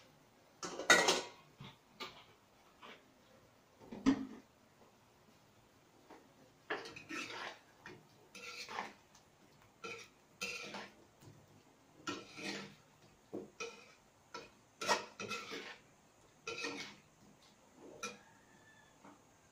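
A metal spatula scraping and knocking against a metal frying pan in irregular strokes, stirring pieces of chicken. The sharpest knocks come about a second in and about four seconds in.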